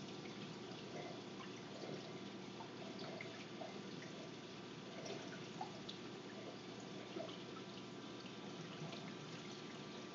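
Reef aquarium water trickling and dripping steadily, with small irregular plops over a faint constant hiss.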